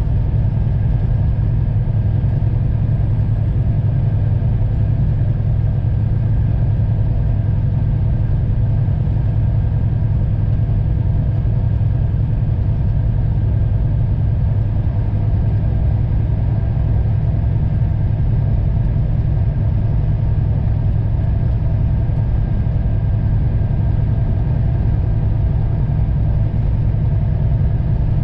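Semi-truck's diesel engine and road noise heard from inside the cab at highway cruising speed: a steady low drone that does not change.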